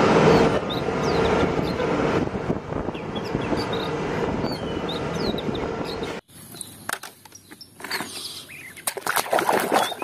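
Diesel engine of a Mack concrete mixer truck running as the truck pulls slowly forward, with birds chirping over it. The engine sound cuts off suddenly about six seconds in, and quieter splashing and knocks of water follow.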